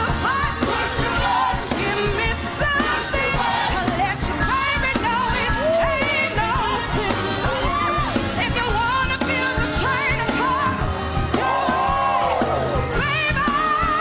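Up-tempo juke-joint number from a stage musical: a live band playing with voices singing and calling out over it. Near the end the melody settles into long held high notes.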